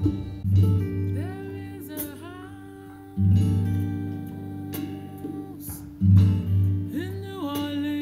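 A song playing, with plucked guitar and a singing voice gliding between notes, and deep bass notes coming in every few seconds.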